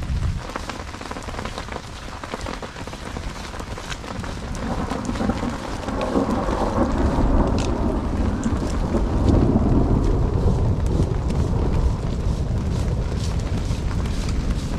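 Steady rain falling on puddles and wet ground, with a long roll of thunder building a few seconds in, loudest around the middle, then slowly fading.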